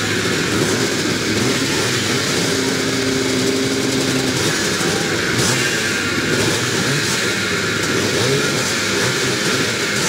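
A field of vintage twin-shock two-stroke motocross bikes idling and revving together on the start line, a dense, steady, overlapping engine din with no single bike standing out.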